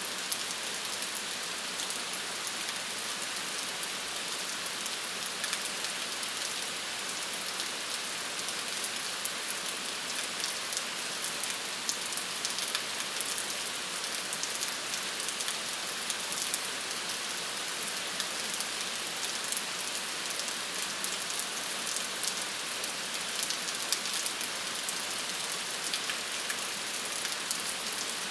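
Steady rain: an even hiss of falling rain with many fine drop ticks on a surface.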